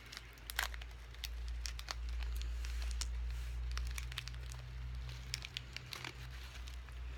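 Small snack packet of peas crinkling and crackling as fingers work at it and tear it open, in scattered short crackles.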